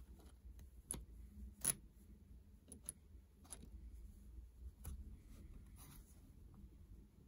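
About eight small, sharp clicks and taps at irregular intervals over a faint low hum, the loudest a little under two seconds in.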